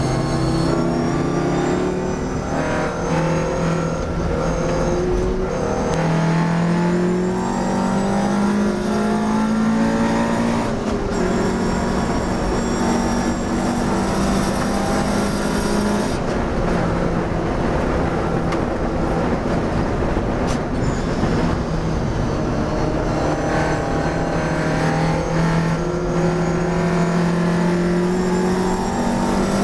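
A classic racing car's engine heard from inside the cabin at racing speed: it climbs in pitch under hard acceleration, drops at an upshift about eleven seconds in, then runs at a fairly steady pitch with a brief lift of the throttle around sixteen seconds.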